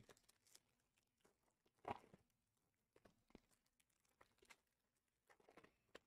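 Near silence broken by a few faint, short taps and rustles, the loudest about two seconds in, from hands handling sealed trading-card boxes.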